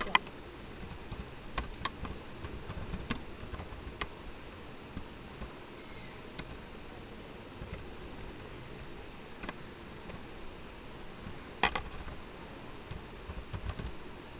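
Typing on a computer keyboard: irregular keystrokes in uneven bursts, with one louder click about three-quarters of the way through.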